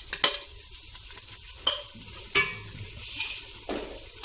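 Metal spoon stirring and scraping frying onion-tomato masala in a metal pot, over a steady sizzle, with a few sharp clinks of spoon on pot, the loudest about a quarter second and two and a half seconds in.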